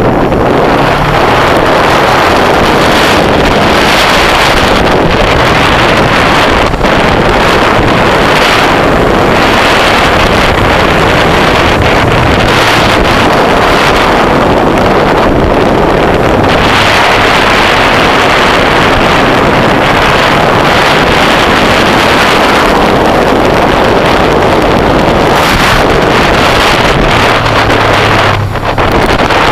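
Heavy wind noise on a motorcycle-mounted camera's microphone at riding speed, with the motorcycle's engine running steadily underneath.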